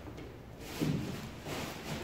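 Kendo practice impacts: two thuds about a second apart, from feet stamping on a wooden dojo floor and bamboo shinai strikes.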